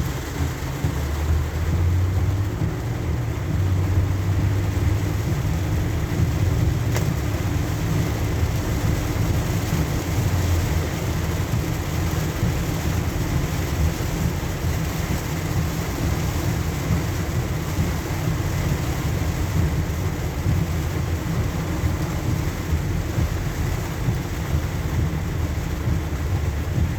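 Car driving on a rain-soaked road, heard from inside: a steady low rumble of engine and road with an even hiss of tyres on wet pavement and rain, and a single brief click about seven seconds in.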